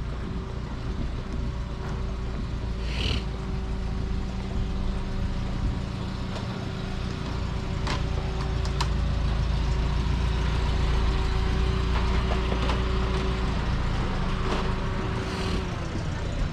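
An engine idling steadily, a low hum of constant tones, with two sharp clicks about eight and nine seconds in.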